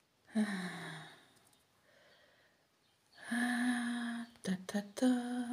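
A woman's voice without words: a breathy sigh falling in pitch, then about three seconds in a long hum held at one pitch, followed by short murmurs.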